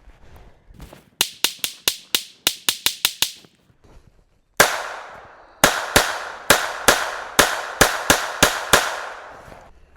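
Smith & Wesson M&P 22 Compact pistol firing .22 LR hollow-point rounds into a tree in two magazine-length strings. First comes a rapid string of about ten shots in two seconds. After a short silence comes a second string of about ten shots, roughly three a second, each with a ringing echo.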